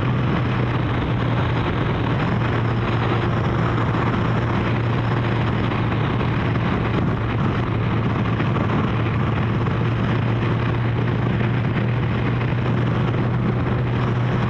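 Kawasaki GPZ1100 inline-four motorcycle engine running at a steady cruise, a constant low drone under heavy wind rush.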